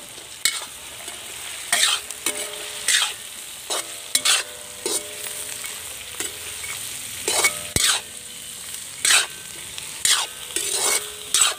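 Moringa seeds, onion, tomato and dried red chillies sizzling in hot oil in a kadai. A ladle scrapes and stirs through them in sharp, irregular strokes about once a second, over a steady frying hiss.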